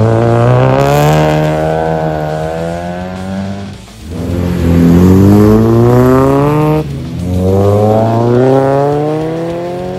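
Modified cars accelerating away one after another, each engine note climbing in pitch as it pulls off. There are three runs, the first ending about four seconds in and the next just before seven seconds.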